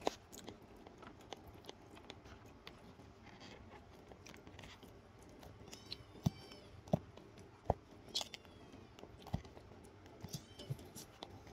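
A man chewing and handling food by hand, with small clicks and crunches, several of them sharper between about six and eight seconds in. Cats meow faintly a few times, begging for food.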